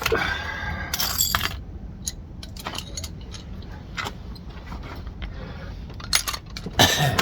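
Repeated metal clicking and rattling from hand tools and car door-handle parts being worked by hand, with louder flurries near the start, about a second in, and again about six seconds in.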